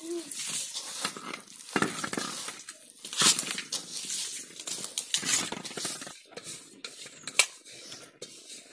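Hands mixing a wet batter of chopped vegetables, rice flour and water in a stainless-steel bowl: an uneven run of squishing and scraping noises against the bowl.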